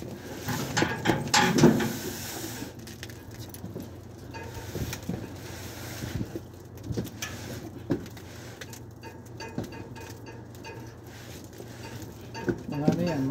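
Large cardboard cargo boxes are shoved and slid across a truck bed, giving scraping and dull knocks. The busiest stretch comes in the first couple of seconds, then scattered single knocks follow. A steady low hum runs underneath.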